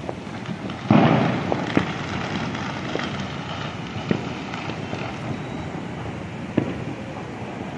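Firecrackers going off in the distance: one loud bang about a second in with a rumbling tail, then five or so smaller sharp cracks at uneven intervals, over a steady background noise.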